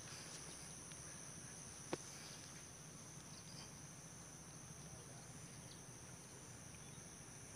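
Faint, steady high-pitched insect chirring in a field, with a single short click about two seconds in.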